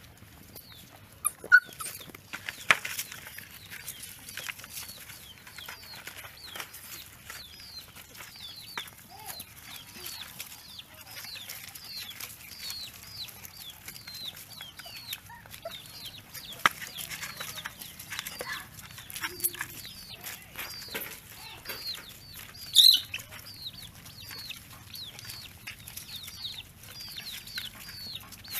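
Chicks peeping over and over in a steady string of short, high, falling chirps, with a few lower clucks from a hen. A couple of sharp knocks sound near the start, and one louder call stands out about three-quarters of the way through.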